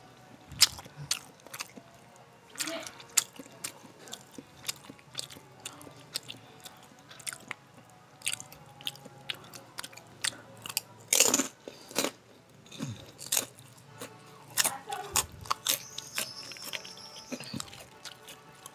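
Close-up eating sounds: crisp crackers crunched between the teeth with wet chewing of rice, a string of sharp irregular crunches, loudest about eleven to twelve seconds in.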